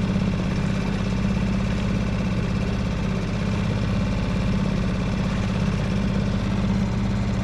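A small boat's motor running steadily at a constant speed, one even drone with no change in pitch.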